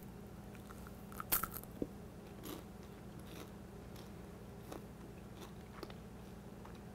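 Crunching and chewing of popcorn with a hard, candy-like coating of honey, butter and cinnamon red-hot candies: a few crisp crunches about a second in, then faint scattered crunches as it is chewed.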